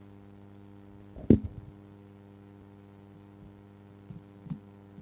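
Steady electrical mains hum, with one loud knock about a second in and two fainter knocks near the end.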